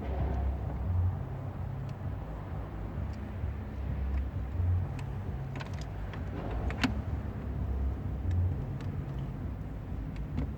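A steady low rumble that swells about every two seconds, under small clicks and taps of plastic trim and wiring being handled, with one sharper click about seven seconds in.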